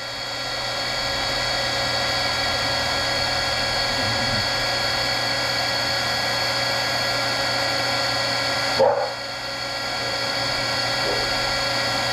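Electric heat gun running steadily, a fan hiss with a steady motor whine, as it heats a heat-shrink solder sleeve to melt it over a spliced power-window wire. A short louder sound cuts in about nine seconds in.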